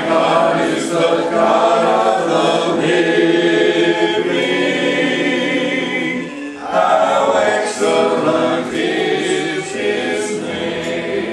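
A group of voices singing a hymn together, held sung phrases with a short break about six seconds in before a last phrase that fades toward the end.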